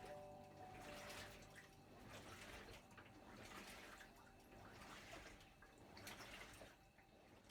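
Faint splashing and dripping water, uneven and irregular.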